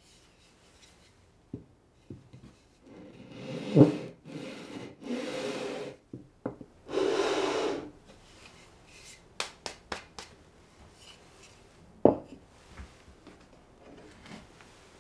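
Edge of a plywood panel rubbed back and forth on sandpaper laid on a glass plate: about four long sanding strokes. These are followed by a run of light taps and a sharp wooden knock as the board is set down on the workbench.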